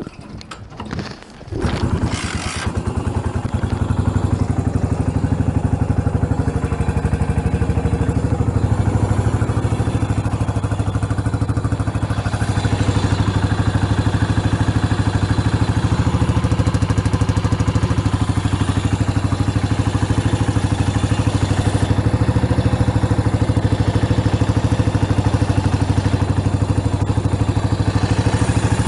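Yamaha SR400's single-cylinder four-stroke engine starting about two seconds in after a few clattering knocks, then idling steadily with a deep, even beat. The seller judges it free of abnormal noise.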